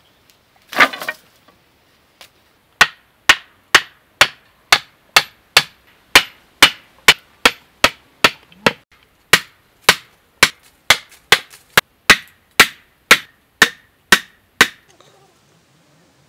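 A bundle of wooden sticks is dropped onto bare earth with a short clatter about a second in. It is followed by a long, even run of sharp wooden strikes, about two a second, a tool hitting wood, which stops shortly before the end.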